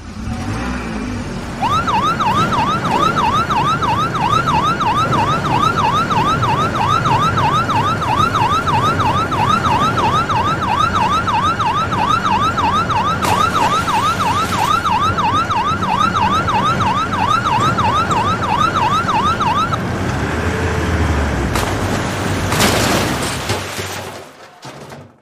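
Toy fire engine's electronic siren sounding a fast yelp, its pitch sweeping up and down about two and a half times a second for roughly eighteen seconds before it stops. A short burst of noise follows near the end.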